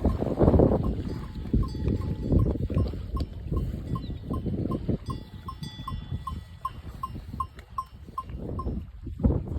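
A bell on a grazing cow ringing in a steady rhythm of short notes, about three a second, with wind buffeting the microphone underneath.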